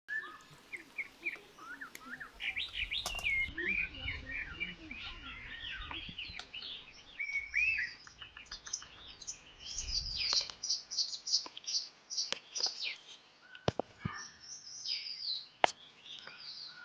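Several small birds chirping and twittering in quick, varied calls, with a few sharp clicks in the last few seconds.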